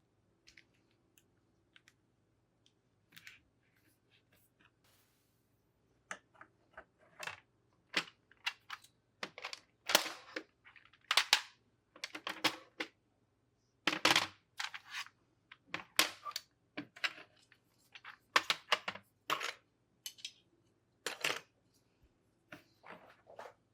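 Irregular sharp plastic clicks and clacks of keyboard keycaps being handled and fitted, sparse at first, then louder and closer together from about six seconds in.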